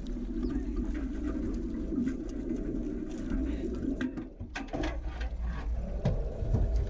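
Boat outboard motor running steadily at low trolling speed, with several sharp knocks and clatters in the second half.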